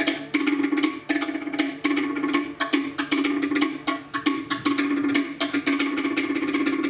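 Cook Islands pate, wooden slit drums, struck with sticks by two drummers in a fast, continuous interlocking rhythm of sharp wooden knocks.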